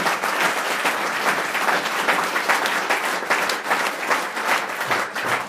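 Audience applauding, a dense, steady clapping from a room full of people.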